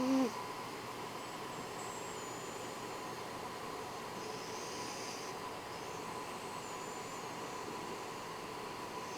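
Domestic cat snoring in its sleep: a short pitched snore right at the start, then a soft hissing breath about halfway through, over a steady background hiss.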